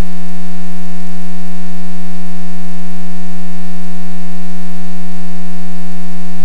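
Loud, steady electrical hum with a buzzy stack of overtones on the aircraft's intercom and radio audio feed, unchanging throughout.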